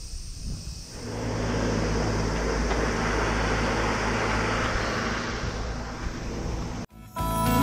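Steady motor vehicle noise, engine and road noise, which comes up about a second in, holds level and stops abruptly near the end.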